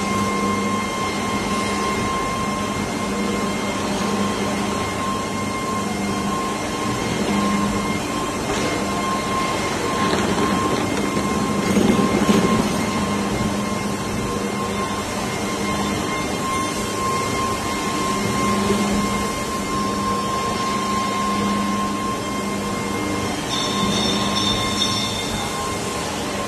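Steady machinery din from hydraulic die-cutting presses running in a workshop: a constant hum with a thin high whine held on one pitch, swelling a little about halfway through.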